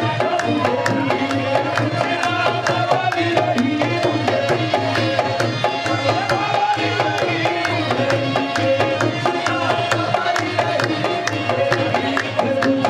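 Qawwali music: tabla playing a quick, steady beat under a sustained melody line.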